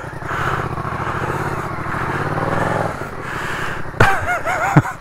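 Motorcycle engine running at low revs while the bike creeps slowly over a dirt hillside, easing off about three seconds in. Near the end there are a couple of sharp knocks and a short wavering voice-like sound.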